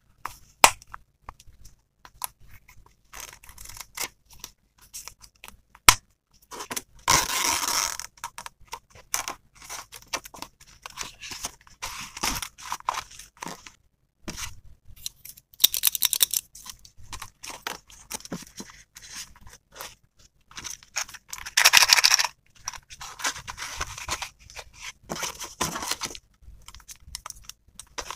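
Stationery items being handled and packed into a zippered pencil case, with sharp clicks and taps as plastic pieces are picked up and set down. Several scraping, rustling passages of about a second each come as items slide into place.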